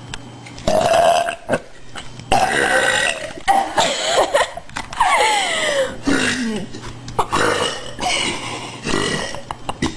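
A woman belching loudly, a run of about five long burps one after another, several with a pitch that slides downward.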